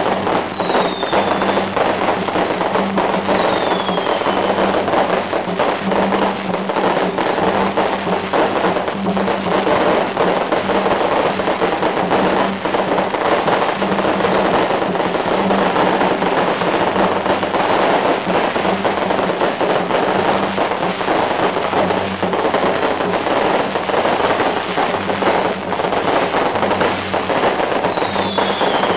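Strings of firecrackers crackling densely and continuously, with a few short falling whistles near the start and again near the end.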